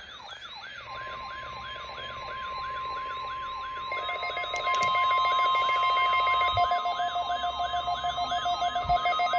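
Layered electronic alert tones: a siren-like falling sweep repeating about three to four times a second over a steady high alarm tone, joined about four seconds in by further steady tones as the sound grows louder.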